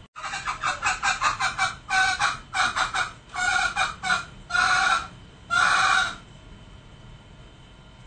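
Male green junglefowl calling: a quick run of short, closely spaced notes, then several longer notes spaced further apart, the last two the longest, stopping about six seconds in.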